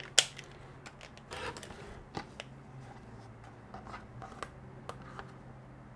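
Light clicks and knocks of a rotary cutter and an acrylic quilting ruler being picked up and handled on a cutting mat. The sharpest click comes just after the start.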